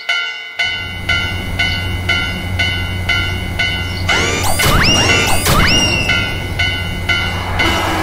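Japanese level-crossing warning bell ringing its repeated 'kan-kan' about twice a second. About half a second in, the low rumble of a passing train joins it. From about halfway, quick sweeping whoosh sounds come in as the Shinkansen trains go by.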